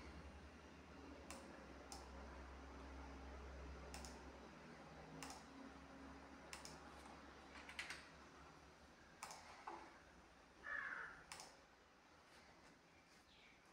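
Near silence: faint room tone with a low hum and a dozen or so faint, scattered clicks.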